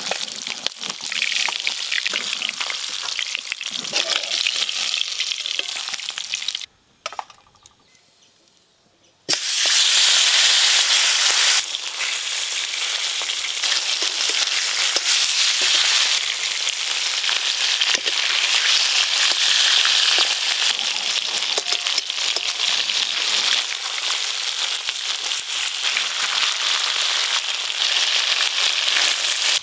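Fish pieces, rubbed with salt and turmeric, sizzling steadily in hot mustard oil in a wok. The sizzling drops out for about two seconds around the middle, then comes back louder.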